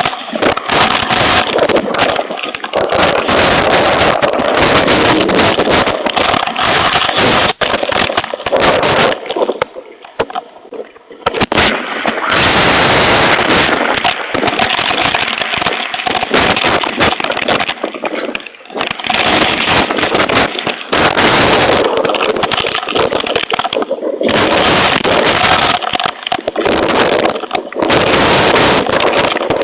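Hailstones pelting a hail protector cover in a loud, dense crackling rattle of impacts. It eases off for a couple of seconds about ten seconds in, then briefly twice more later.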